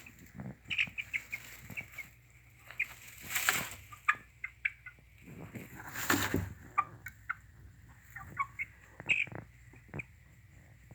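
A chicken making short, high clucking calls in scattered bursts. Twice, about three and a half and six seconds in, a louder burst of noise stands out.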